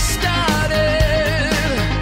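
Background rock music with a steady drum beat, low sustained bass notes and a held, wavering melody line on top.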